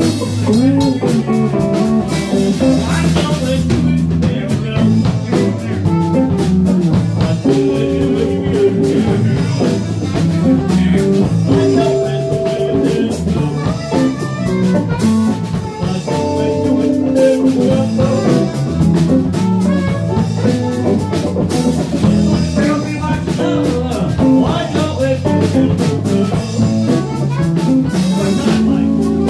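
Live band playing: electric guitar, drum kit and Fender bass guitar in a jam.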